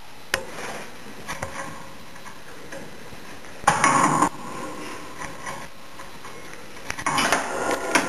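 A budgie's beak tapping and rattling a perforated plastic toy ball: a few light clicks, a louder half-second rattle about four seconds in, and more clicking and rattling near the end.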